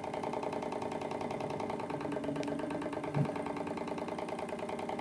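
Small gas-fired Stirling engine generator running steadily: a fast, even mechanical rattle from its pistons and magnet-ringed flywheel. A short low sound comes about three seconds in.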